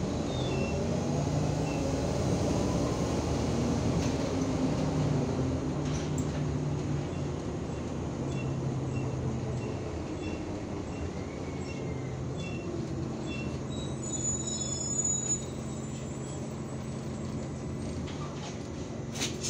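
Inside an IVECO Urbanway 18 m articulated city bus under way: a steady engine and drivetrain hum, with a whine that rises over the first few seconds as the bus speeds up and then settles. A few clicks come right at the end.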